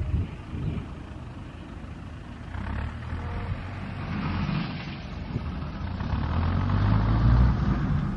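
Wind buffeting the microphone on an exposed clifftop: a gusty low rumble that swells and fades, loudest near the end.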